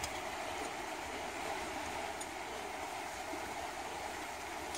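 Steady outdoor background hiss with no distinct event, like the sound of running water or wind.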